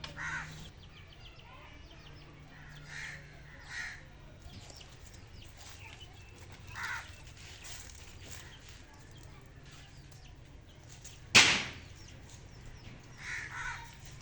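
Birds calling, short separate calls a handful of times spread over the span, over a faint low hum. One loud, sharp sound about eleven seconds in, much the loudest thing here.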